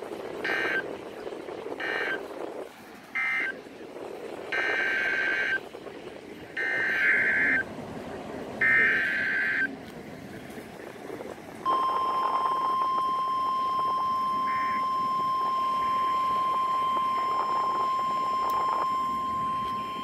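NOAA Weather Radio EAS data tones: three short bursts of SAME digital warbling that end the first warning message, then three longer SAME header bursts that open the next warning. About twelve seconds in comes the steady, high-pitched 1050 Hz Weather Radio warning alarm tone, heard over radio hiss.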